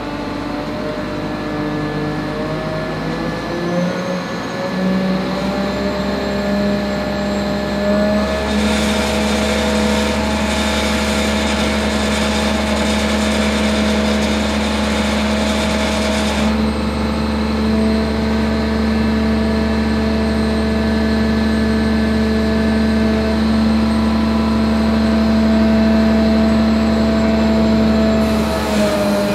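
Crane engine revving up about four seconds in, then running steadily at the raised speed while booming up with the load. A steady hiss joins it for about eight seconds in the middle.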